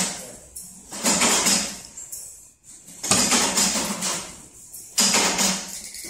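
Bench press assembling metal furniture catches, cycling about every two seconds: three strokes, each a sudden burst of noise that fades over about a second.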